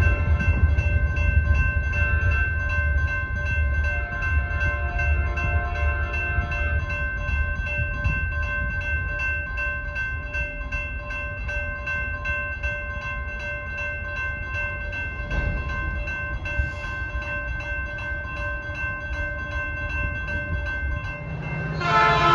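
Railroad grade-crossing warning bells ringing steadily while the signals flash, over a low rumble. Just before the end it switches abruptly to another, louder set of crossing bells.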